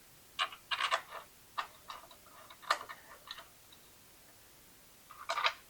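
Scattered light clicks and knocks as the luggage rack and backrest assembly is handled on its mounting spacers and the bolts are readied, a few in the first three seconds and a short cluster near the end.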